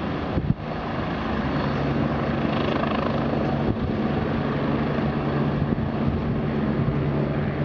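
AgustaWestland AW109 twin-turbine helicopter running on the pad, a steady turbine and rotor hum.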